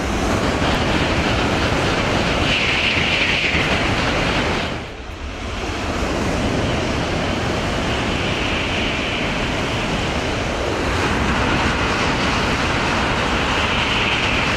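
Shinkansen bullet train passing through a station at high speed: a loud, continuous rush of air and rail noise. The sound dips briefly about five seconds in, then rises again as another high-speed pass follows.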